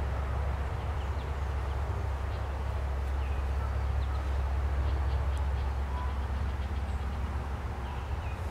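Outdoor ambience: a steady low rumble, with faint short chirps of small birds here and there.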